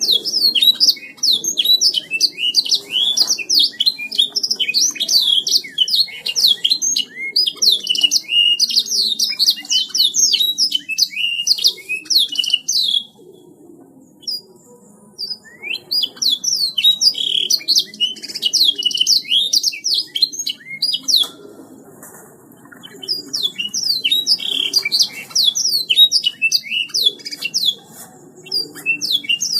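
Canary singing long phrases of rapid, high trills and chirps, breaking off briefly about 13 seconds in and again about 21 seconds in before starting up again.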